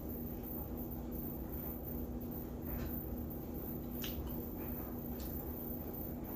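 Soft wet chewing and mouth sounds of someone eating, with a few faint clicks, over a steady low hum.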